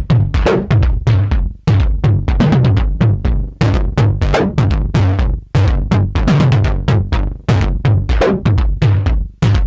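Modal Electronics CRAFTsynth 2.0 wavetable synthesizer playing a synthesized drum pattern: a steady run of hits with deep kicks that drop in pitch, and sharp hi-hat-like ticks between them.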